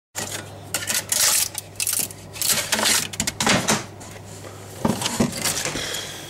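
Irregular rattling and scraping clatter around a 3D printer's build area with its freshly printed parts, in uneven bursts over a steady low hum.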